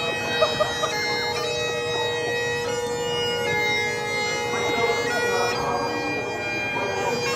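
Great Highland bagpipe playing a slow piobaireachd. Steady drones sound under chanter notes held about a second each, with quick grace-note flourishes near the start.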